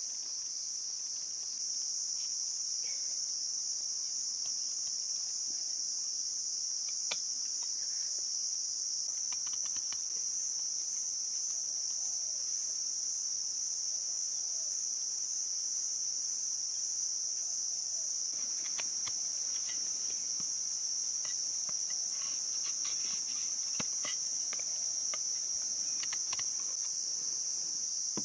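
Steady, unbroken high-pitched insect chorus, with a few faint clicks and taps in places.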